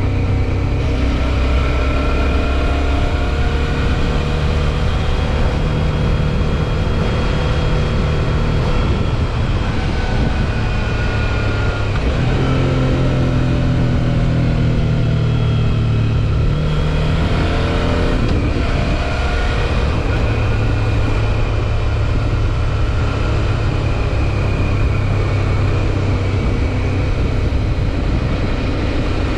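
Suzuki V-Strom 650 XT's V-twin engine running under way. Its pitch drops about a third of the way in, rises again a little past halfway, then holds steady.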